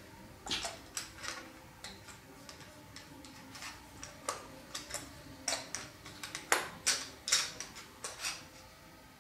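Irregular light clicks and knocks of turned wooden salt-mill parts being handled and fitted together, the busiest stretch about two-thirds of the way in.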